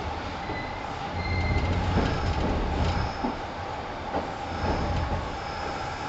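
Kintetsu 1010 series electric train running, a steady rolling noise with a low rumble that swells about a second in. Brief high wheel squeals come several times.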